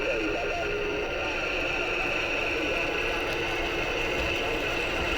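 CB radio receiver hissing with steady static, a faint voice coming through it in the first second.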